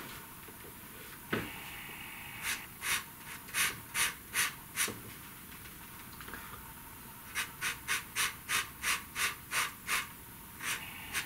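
Pastel pencil scratching on paper in short, quick strokes: a run of about seven strokes a couple of seconds in, then a faster run of about nine more strokes later on.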